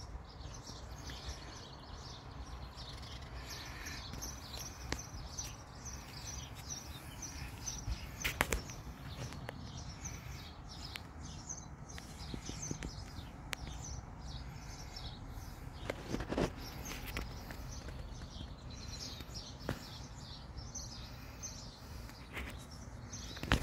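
Outdoor ambience with birds chirping over and over in the background, with a low steady hum of surroundings. A few sharp clicks stand out, about eight seconds in and again around sixteen seconds.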